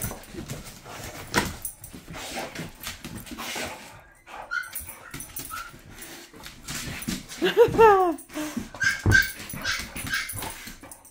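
Dog whining and whimpering while pawing and nosing at a squeaker football, with claws and the toy clicking and scuffing on a tile floor. One longer whine, rising and then falling, about two-thirds of the way through.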